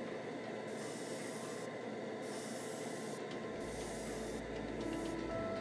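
Airbrush spraying a flat clear coat: a steady air hiss that starts and stops three times as the trigger is worked in short passes.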